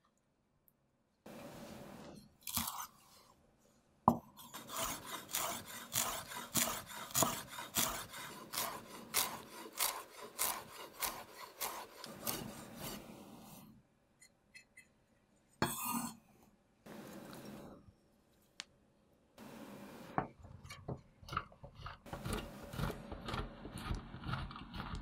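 A chef's knife chopping fresh dill on a wooden cutting board in quick, even strokes for about ten seconds. Later, a block of cheese is rubbed up and down a stainless steel box grater, a repeated rasping scrape.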